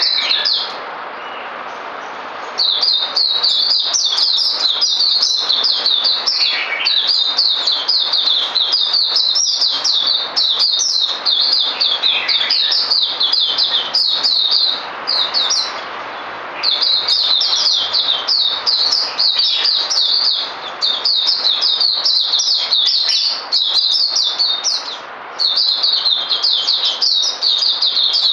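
Caged white-eyes singing a rapid, high twittering song in long unbroken runs, with a few short pauses. The birds are in push training, one bird's song driving the other to sing.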